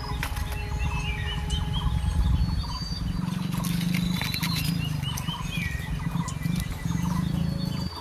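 Several forest birds chirping and whistling in short repeated calls, over a loud low rumble that cuts off abruptly near the end. A few dry leaf-litter rustles and scrapes sound around the middle as fingers dig through the ground.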